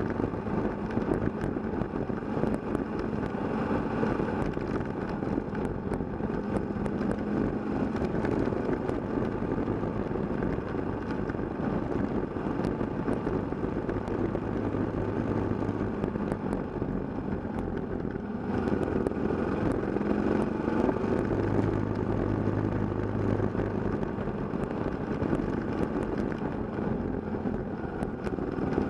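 Kawasaki KLR650 single-cylinder motorcycle engine running steadily at a cruising pace on a dirt road, mixed with wind and road noise. The sound dips briefly about two-thirds of the way through, then picks up again.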